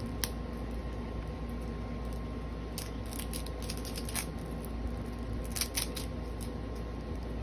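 Plastic wrapping being peeled off a Mini Brands toy capsule ball: a few short crinkles and crackles, clustered about three seconds in, around four seconds and near six seconds, over a steady low hum.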